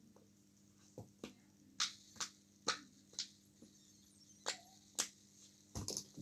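Plastic fidget toys being handled, giving about ten short, sharp clicks and snaps at irregular intervals, with a quick cluster near the end.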